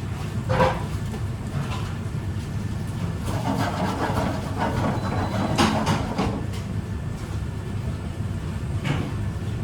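Busy commercial kitchen noise: a steady low rumble with a few sharp knocks and clatters of kitchenware, one about half a second in, a louder one near the middle and another near the end.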